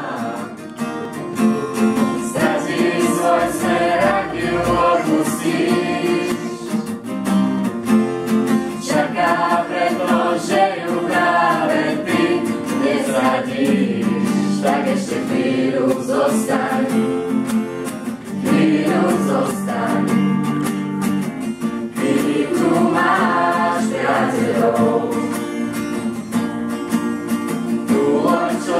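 A group of students singing a song together in chorus, accompanied by a strummed acoustic guitar.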